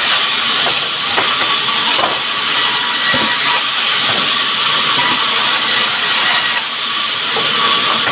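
Band sawmill blade cutting through a log, a steady loud hiss with a faint high whine and a few light knocks.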